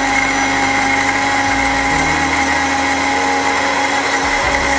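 Anex electric blender running steadily with a constant motor whine, grinding onion, green chilli, ginger and garlic into a paste.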